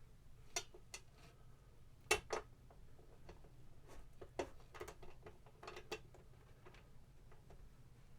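Scattered clicks and knocks of a 12-inch guitar speaker being handled and pressed into place on its cabinet baffle, with a sharp double knock about two seconds in.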